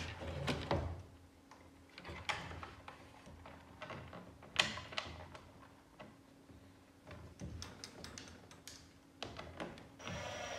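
Scattered small clicks and knocks of screws and 3D-printed plastic housing parts being handled and fitted by hand. About ten seconds in, a cordless screwdriver starts running steadily.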